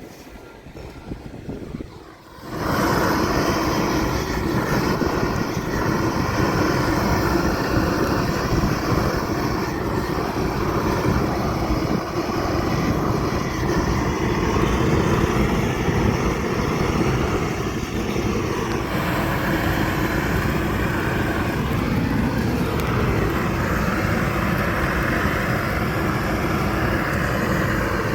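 Steady mechanical running noise that comes in abruptly about two and a half seconds in, after a quieter start, and then holds level.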